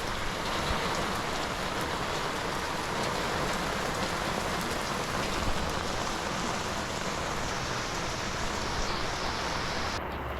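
Steady heavy rain falling, heard from under an umbrella. Just before the end the hiss abruptly loses its upper part.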